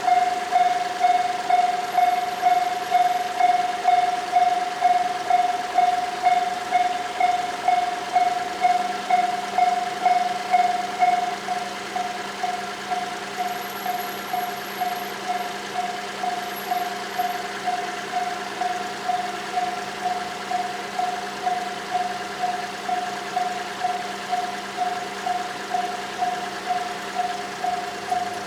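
Japanese railway level crossing's warning bell ringing, a single ding repeating evenly about twice a second; it becomes somewhat quieter about twelve seconds in.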